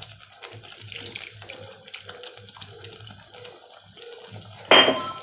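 Water pouring in a stream into a pan of thick pea ragda to thin it out. A single sharp clink comes near the end.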